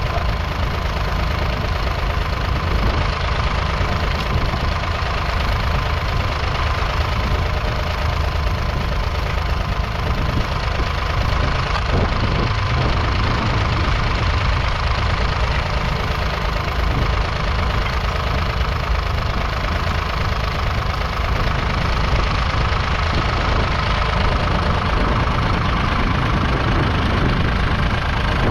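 1959 Nuffield Universal Three tractor's 2.6-litre three-cylinder diesel engine running steadily.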